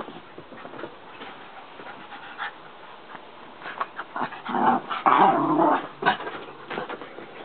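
Yorkshire terrier growling in rough play: a dense, rough growl from about four and a half seconds in, lasting about a second and a half, with short clicks scattered around it.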